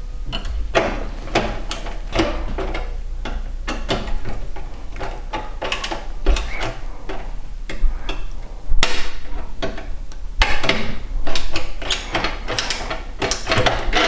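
Hand screwdriver turning screws into the graphics card's bracket on a steel PC case's expansion-slot rail: irregular metallic clicks, scrapes and knocks.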